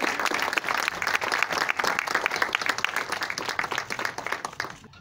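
Audience applause, a dense clatter of many hands clapping that dies away near the end.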